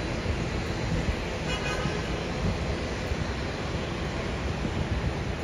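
Jet airliner on final approach heard from a distance as a steady rumble, mixed with wind on the microphone. A short high-pitched sound about one and a half seconds in.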